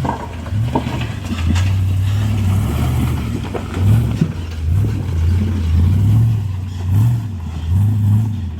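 Off-road vehicle's engine running, its pitch rising and falling again and again as the throttle is worked, with a few sharp knocks in the first few seconds.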